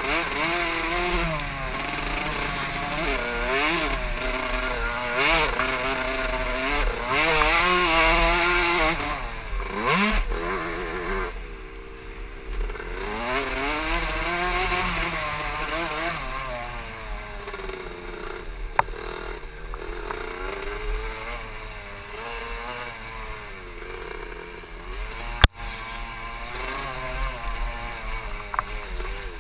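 KTM SX 65's small 65cc two-stroke single-cylinder engine being ridden hard, its pitch rising and falling again and again as the throttle opens and shuts. The engine drops back briefly a little before halfway, and there is one sharp knock a few seconds before the end.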